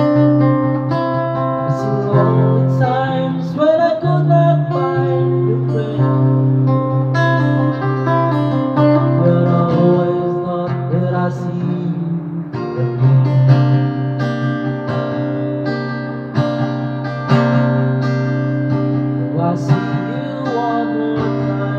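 Acoustic guitar played in sustained chords and picked notes, with a man's voice singing along in places, most clearly a few seconds in and again near the end.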